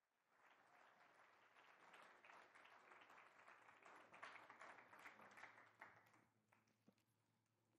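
Congregation applauding faintly. The clapping dies away about six seconds in, leaving a few scattered claps.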